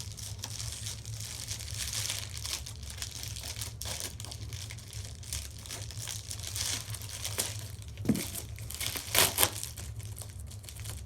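Mail packaging being opened and handled by hand: continuous crinkling and rustling with scattered crackles and a few louder crunches about eight and nine seconds in. A steady low hum runs underneath.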